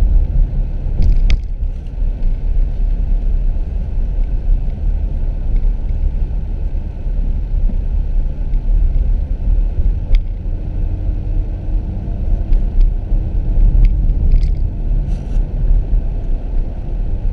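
Steady low rumble of a car on the move, heard from inside the cabin: road and engine noise, with a few faint ticks scattered through it.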